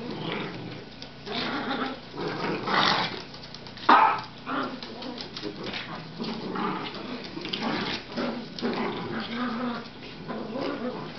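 A miniature poodle and a Cavalier King Charles Spaniel growling as they play tug-of-war, with one short, louder outburst about four seconds in.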